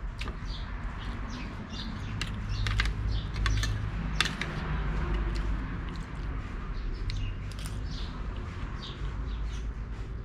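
Small birds chirping on and off, with a few sharp clicks of a metal spoon against a ceramic bowl as a person eats soup.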